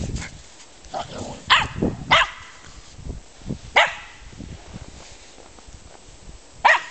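German Spitz (Mittelspitz) barking in play: about five sharp, high barks, two close together around one and a half and two seconds in, one near four seconds, and a last one near the end.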